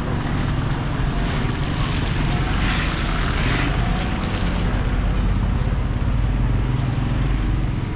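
A minivan driving close past, its engine and tyres on the wet road swelling to a hiss about three seconds in, over a steady low rumble of wind on the microphone.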